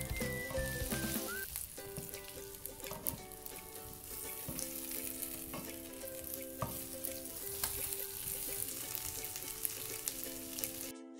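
Fried chicken wings sizzling in garlic-butter sauce in a non-stick pan as they are stirred and tossed with a spatula, with crackling and short clicks of the spatula against the pan.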